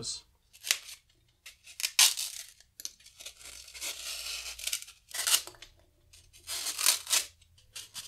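Utility knife blade cutting through a block of shaping foam, a series of short rasping, tearing strokes with one longer stroke in the middle.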